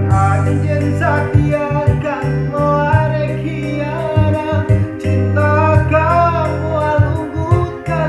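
Sundanese pop song: a voice singing a wavering melody over a backing track with a steady bass and a regular ticking beat.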